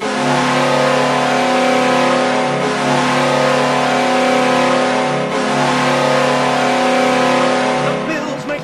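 Buffalo Sabres hockey goal horn sounding loudly in long, steady blasts that run almost into one another, dipping briefly about every two and a half seconds.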